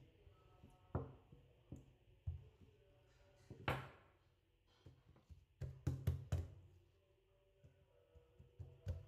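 Scattered knocks and taps of a plastic rolling pin and hands working bread dough on a silicone mat, with a sharper clack a little before halfway, when the rolling pin is set down, and three quick knocks about two-thirds through.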